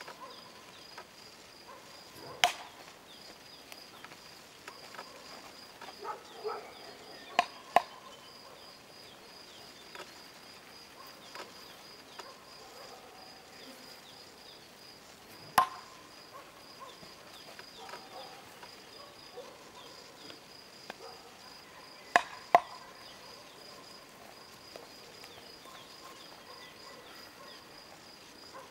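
A tomahawk thrown at a round wooden log target, striking it with sharp thunks about four times; two of the hits come as quick doubles. A steady, faint, high pulsing chirp runs underneath.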